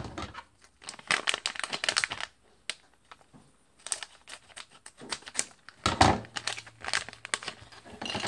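Shiny plastic-foil Lego minifigure blind bag crinkling in several bursts as it is handled, cut open with scissors and emptied.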